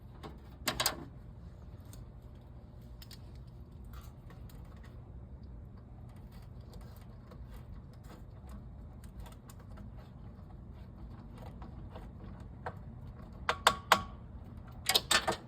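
Metal hand tools and parts clicking and clanking in short clusters, about a second in and twice near the end, while a replacement car radiator is being fitted; a steady low hum runs underneath.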